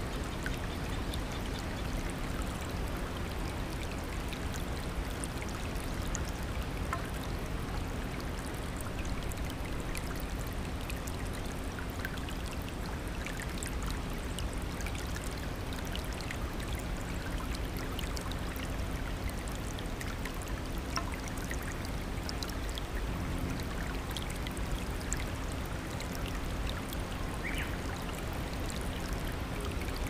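A rocky stream rushing steadily over stones in small rapids, with faint scattered ticks of splashing water.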